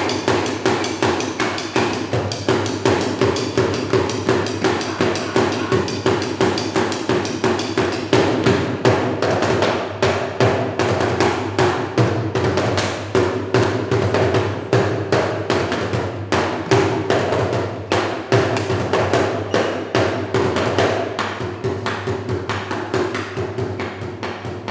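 Bucket drumming: drumsticks beating a plastic bucket in a fast, steady run of sharp hollow strikes, growing softer near the end.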